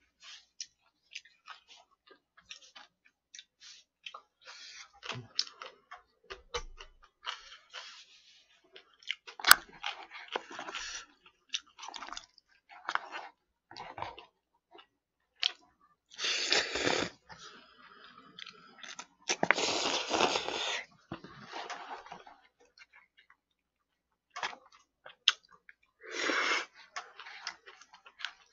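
A man eating noodles with chopsticks: many small wet chewing and smacking sounds and clicks, with two louder noisy stretches of about a second each just past the middle.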